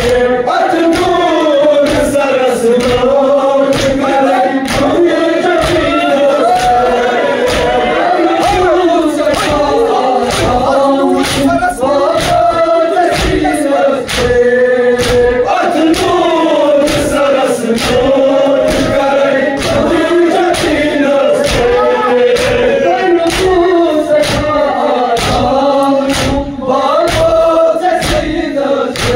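Crowd of men chanting a Kashmiri noha in unison, with a steady rhythm of sharp slaps from hands beating on chests in matam.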